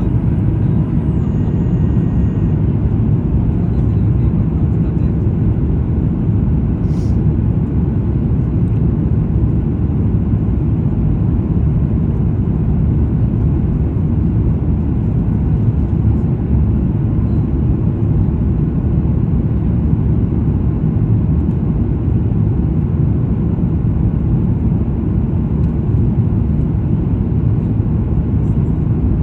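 Steady low rumble of cabin noise inside a Boeing 737 MAX 9 airliner on approach: its CFM LEAP-1B engines and the airflow over the fuselage, even in level.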